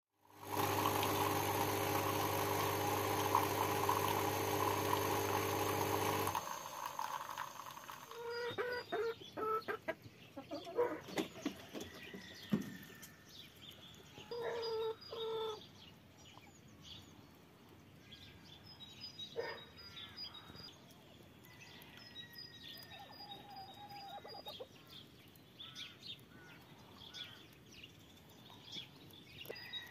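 A loud held chord-like tone for about the first six seconds, stopping abruptly. Then domestic hens clucking on and off, with small birds chirping in the background.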